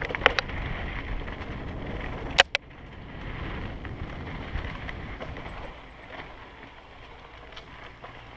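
Electric mountain bike rolling along a dirt singletrack, with tyre noise, rattles over bumps and low wind rumble on the helmet microphone. A sharp double knock comes about two and a half seconds in, and the riding is quieter in the second half.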